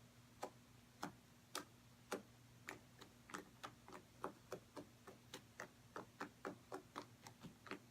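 Homemade slime being poked with a finger, giving a series of small sticky clicks and pops, about two a second at first and quickening to three or four a second in the second half.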